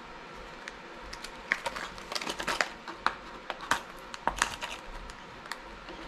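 Plastic blister packaging of a fishing lure being pried and peeled open by hand: an irregular run of sharp clicks and crinkling crackles.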